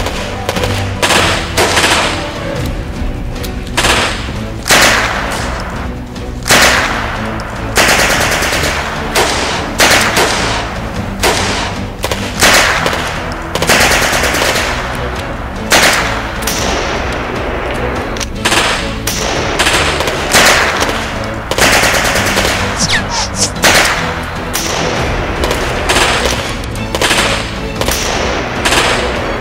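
Staged gunfight: a string of gunshots, single shots and short quick bursts, from submachine guns and bolt-action rifles, with a music score underneath.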